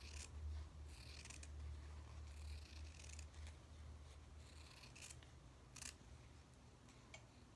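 Small scissors snipping through cotton quilting fabric backed with applique paper, a series of quiet, irregularly spaced cuts, over a low steady hum that fades about two-thirds of the way through.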